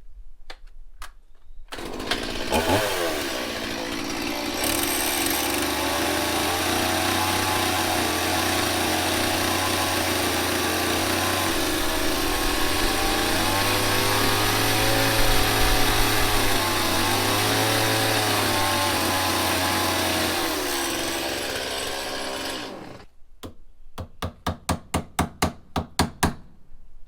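Power drill driving a long screw into the door-frame timber: the motor runs steadily for about twenty seconds, its pitch dipping and rising under load, then stops and gives a quick run of short trigger bursts near the end as the screw is seated.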